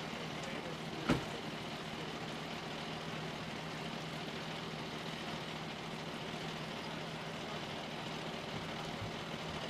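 Heavy tow truck's engine idling steadily, with one sharp knock about a second in.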